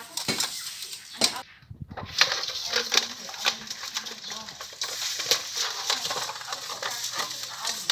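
Hands scrubbing slippery fish pieces with coarse grains in a stainless steel bowl: wet rubbing and scraping with many small clicks and knocks as the fish and hands hit the metal.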